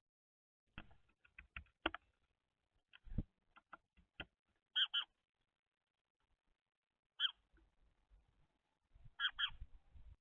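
Birds at a feeder: a run of sharp taps and knocks over the first few seconds, then short high chirps, the loudest ones in quick pairs, about every two to three seconds.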